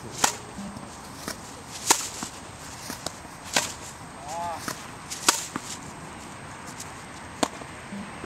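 Tennis balls being struck by racquets: five sharp pops spaced about one and a half to two seconds apart, with fainter ticks in between.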